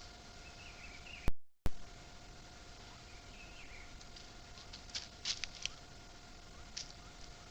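Faint woodland ambience: a steady high hum under short twittering bird phrases, with a few sharp crackles near the middle and once more later. The sound cuts out completely for a moment about a second in.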